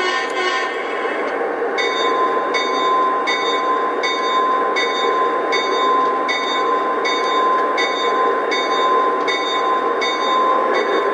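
Lionel Legacy RailSounds of a GE AC6000CW diesel lash-up played through the models' onboard speakers: the prime mover runs steadily under a thin constant whine. From about two seconds in, the locomotive bell rings evenly, a stroke roughly every three quarters of a second.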